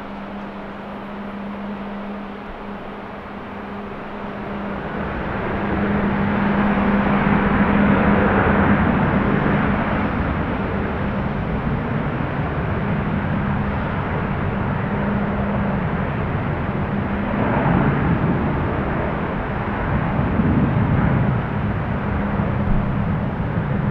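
Jet airliner engine noise, a broad rumble that swells about five seconds in and stays loud through the rest.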